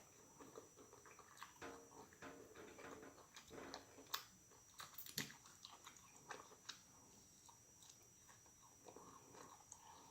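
Faint close-up chewing and mouth sounds of someone eating, with scattered soft clicks; the clearest come about four and five seconds in.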